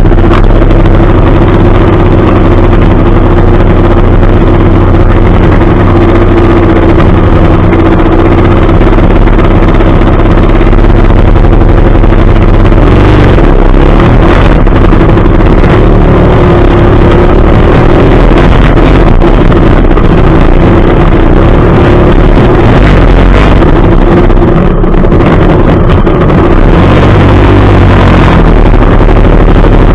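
Trail dirt bike engine running steadily at low revs, very loud and close to the bike-mounted camera.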